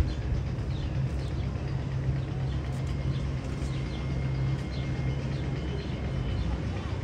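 Recorded sound effect played over loudspeakers: scattered bird chirps over a steady low hum.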